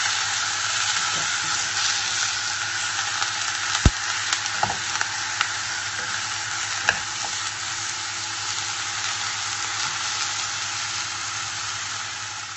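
Chunks of raw meat sizzling as they fry in a pot, stirred with a metal spoon. A few sharp knocks of the spoon against the pot, the loudest about four seconds in.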